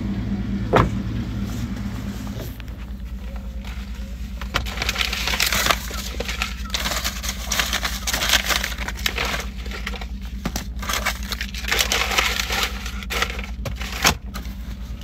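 Pickup truck engine idling, heard as a steady low hum inside the cab. From about five seconds in, close rustling and crackling from handling near the microphone, with sharp clicks among it.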